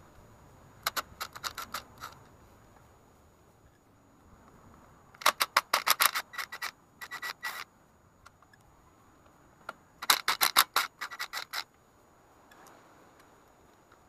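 Cordless drill working the screws of a metal cargo rack in three short bursts of rapid clicking, about a second, two seconds and a second and a half long.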